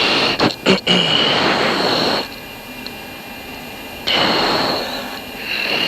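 Steady rushing cockpit noise of a fighter jet in flight, with a whistling edge, picked up by the pilot's mic; it cuts out briefly a few times near the start, drops to a quieter hiss for about two seconds midway, then comes back.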